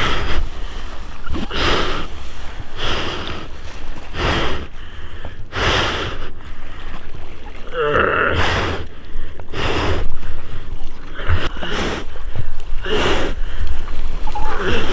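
Seawater splashing and sloshing around a bodyboard as the rider paddles through whitewater, in a regular stroke about every second and a half, over a steady low rumble of moving water.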